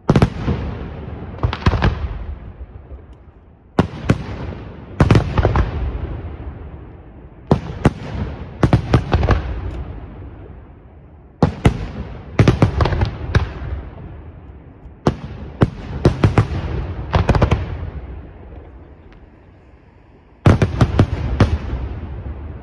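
Aerial firework shells bursting overhead in volleys of several loud bangs, one volley every few seconds, each followed by a rolling rumble that dies away.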